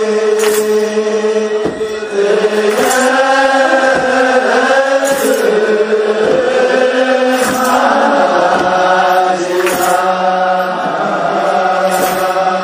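Ethiopian Orthodox clergy chanting a wereb together: a slow unison chant with long held notes over a steady low drone. Six sharp beats are struck at an even pace, one roughly every two and a half seconds.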